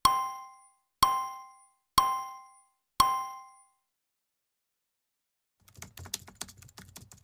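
Countdown sound effect: a bell-like ding once a second, four times, each ringing out and fading before the next. After about two seconds of silence, a quick run of keyboard-typing clicks lasting a second and a half.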